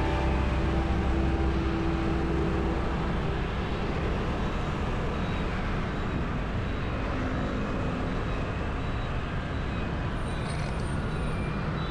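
Steady road traffic noise on a busy city road: engines and tyres running as a continuous low rumble.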